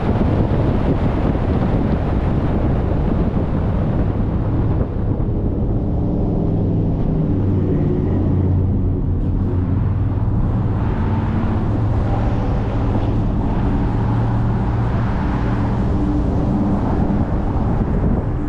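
A car driving at highway speed: a steady rush of road and wind noise, fuller in the first few seconds, with a low steady drone settling in from about six seconds in.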